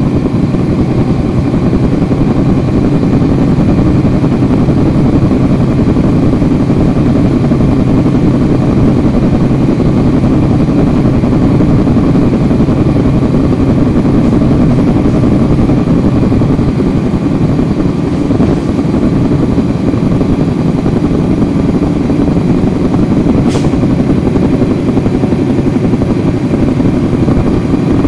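Cummins ISL9 diesel engine of a 2010 NABI 40-foot suburban transit bus running steadily, heard from the rear seats inside the bus. A single brief, sharp click comes near the end.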